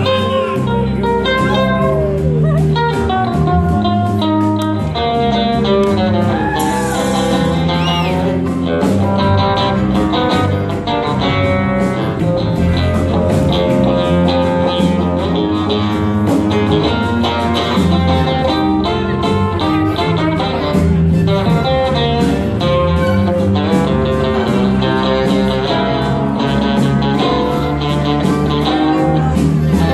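Live band playing an instrumental passage, with a lead line on a Martin N-20 nylon-string guitar over a steady bass line.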